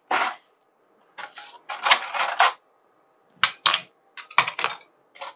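Dishes and cutlery clattering and clinking in short separate bursts while crockery is washed up by hand, with a brief ringing clink near the end.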